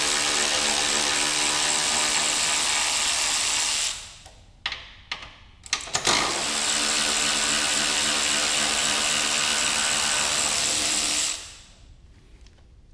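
Ryobi cordless electric ratchet running steadily for about four seconds, stopping for a couple of seconds with a few clicks and knocks, then running again for about five seconds before it stops, spinning out the 10 mm bolts of the engine brace.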